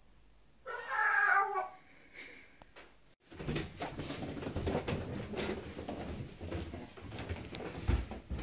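A single meow-like cry lasting about a second. About two seconds later, after a sudden break, a steady jumble of rustling and knocks follows, the sound of handling and movement.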